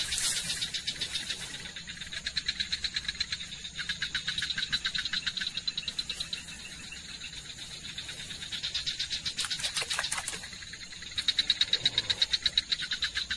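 Frogs calling: rapid pulsed trills in repeated bouts of a second or two, several callers overlapping.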